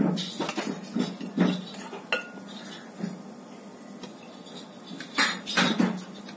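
Stainless steel plate clinking and scraping as it is handled, with scattered light knocks and a louder cluster about five seconds in.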